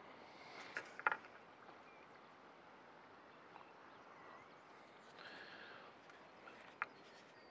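Quiet outdoor canal-bank ambience with a few faint clicks and knocks from fishing tackle being handled as a pole rig is baited and swung out.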